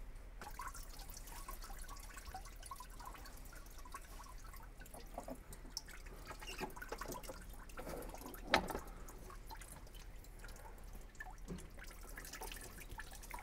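Engine coolant dripping and trickling into a drain pan as the thermostat hose is worked loose, mixed with small scrapes and clicks of a screwdriver prying at the plastic hose elbow. One sharper click stands out a little past halfway.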